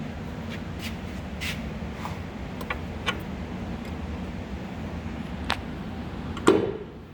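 Hinged metal hood of a Myford Super 7 lathe being let down after its release button is pulled: a few light clicks of handling, then one loud clunk with a short ring as the hood drops shut about six and a half seconds in.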